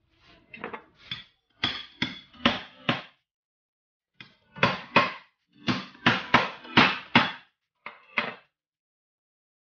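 Knife blade being driven through a thick eel's body into a wooden cutting board by striking its back with a cleaver: about eighteen sharp knocks with a slight metallic ring, in bursts of two to six.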